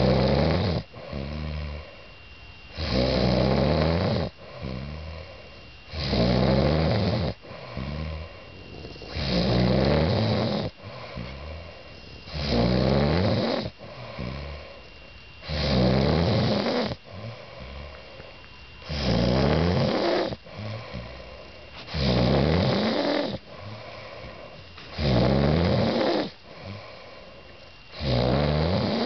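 A man snoring in sleep: a loud, fluttering snore on each breath about every three seconds, with a quieter breath in between, in a steady rhythm.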